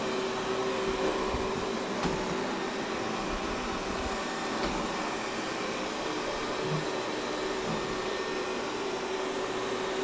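Xiaomi robot vacuum cleaner running steadily: a suction-fan hum with a constant mid-pitched whine, and a couple of faint clicks as it drives across the floor.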